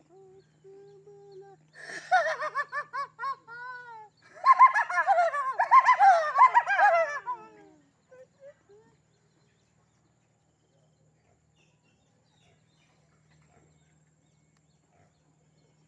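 High-pitched human voices in quick rising-and-falling calls that come in two spells over the first seven or eight seconds, then stop. A faint steady low hum lies underneath.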